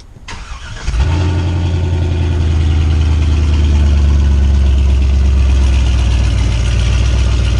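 Pickup truck engine coming in about a second in and then running loud and steady at an even, low pitch.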